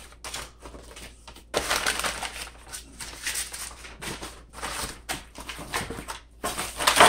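Brown kraft packing paper and cardboard spacers crinkling, rustling and scraping in uneven bursts as they are handled and pulled out of a cardboard shipping carton.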